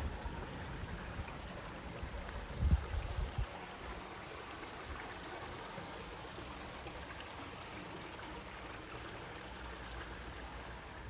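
Small stream trickling over stones, a steady even rush of water. Wind rumbles on the microphone in the first few seconds, with its strongest gust about two and a half seconds in.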